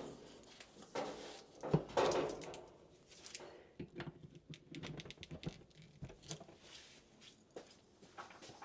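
Handling noise while the reassembled dryer is plugged in and set in place: a knock about a second in, a louder knock and a short scrape near two seconds, then a run of light irregular clicks. The dryer is not yet running.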